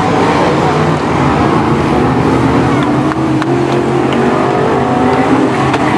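BriscaF1 stock cars' V8 engines running loudly on the track, several at once, their pitch rising and falling as the cars go round.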